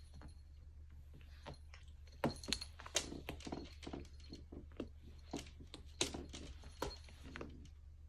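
A cat rolling and rubbing on a plush-covered cat-tree perch under the effect of catnip spray: irregular scratchy rustles and small clicks of claws and fur catching the fabric, densest from about two seconds in to near the end, over a low steady hum.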